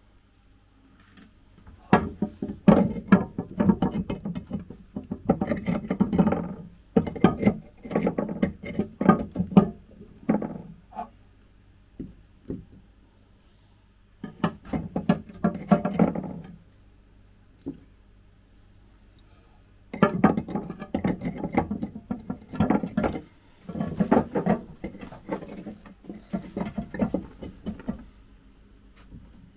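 Chunks of porous lava rock being handled, rough scraping and knocking against each other and on the terrarium's glass floor. The sound comes in several bursts a few seconds long, with quiet pauses between.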